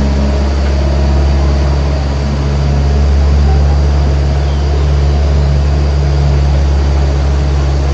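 Zoo tram's engine running steadily as the tram drives along, a constant low hum.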